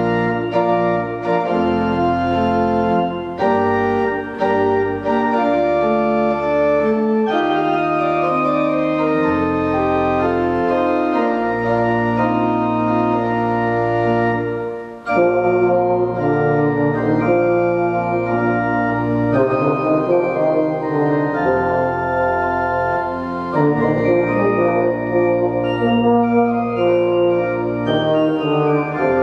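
Organ and euphonium playing a slow piece in held chords, with a sustained bass beneath and a melody line over it. The music breaks off for a moment between phrases about fifteen seconds in, then goes on.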